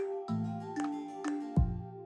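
Instrumental background music: held melodic notes with plucked note onsets, and a deep bass note coming in about one and a half seconds in.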